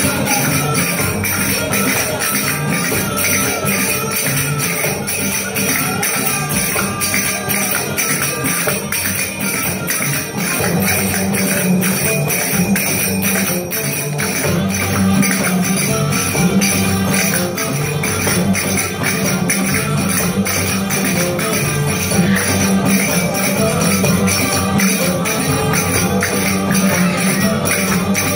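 Belly dance music with a steady drum beat and continuous bright metallic jingling.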